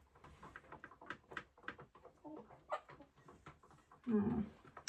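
Chickens clucking, with scattered light taps and rustles and one louder call about four seconds in.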